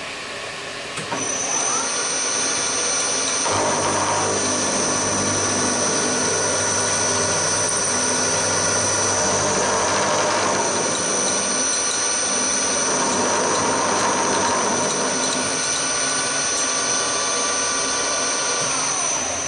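Hafco HM 54GV milling machine cutting aluminium with an end mill as the table traverses, a steady high motor whine over the rough noise of the cut. A second whine rises in pitch just after a second in and falls away near the end, as the table feed starts and stops.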